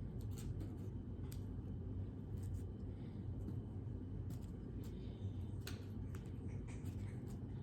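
Scattered light clicks and scratches, irregular and brief, from a cat at play, over a steady low room hum.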